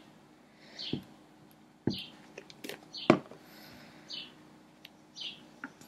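A few soft fingertip taps as a glued paper cutout is pressed down onto a wooden tabletop, spaced about a second apart, with faint rustles between them.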